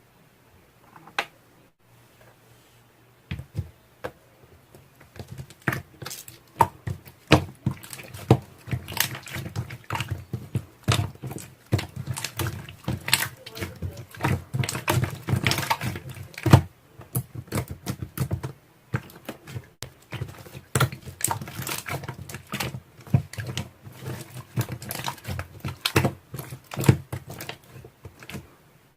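A rapid, irregular run of sharp clicks and taps, starting a few seconds in and going on almost to the end.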